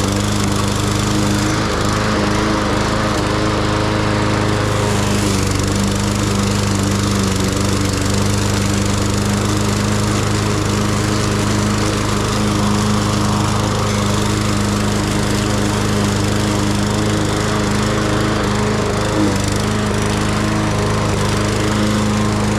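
Lawn mower engine running steadily at a constant speed while cutting grass.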